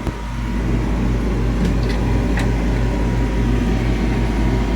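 Cruisair 16,000 BTU marine air conditioner running and blowing cold air: a steady low hum that throbs about twice a second, growing louder over the first second.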